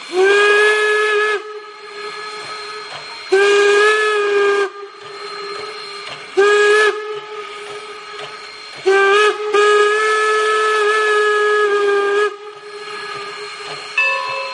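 Steam whistle of Norfolk & Western No. 475, a Baldwin-built 4-8-0 steam locomotive, sounding two long blasts, a short one and a final long one: the standard grade-crossing signal. Between the blasts the locomotive's steam hisses steadily.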